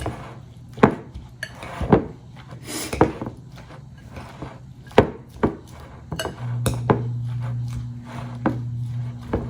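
Utensil clicking and knocking against a dish in irregular single strikes while shredded lettuce is mixed in sauce. A steady low hum comes in about six seconds in.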